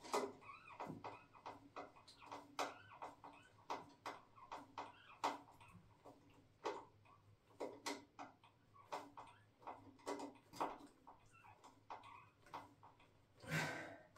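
Irregular light clicks and ticks, about one or two a second, as a toilet seat's fixings are tightened by hand, with a longer scrape near the end.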